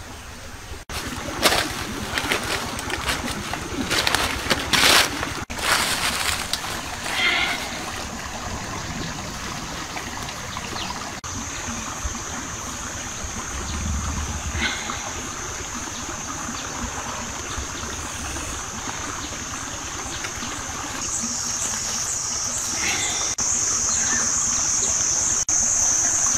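Stream water running, with sharp knocks and rustling of plants in the first few seconds. About halfway in, a steady high-pitched insect drone sets in and grows louder over the last few seconds.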